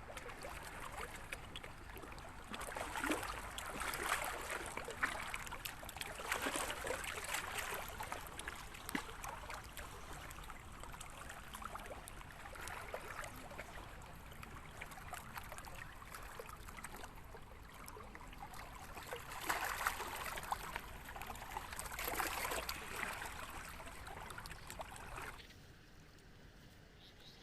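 Lake water lapping and trickling at the shore, a crackly wash that swells in bursts and drops away suddenly near the end.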